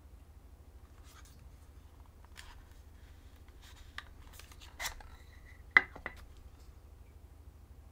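Leica Q3 compact camera being handled: soft rubbing, then a few sharp clicks, the loudest a little under six seconds in.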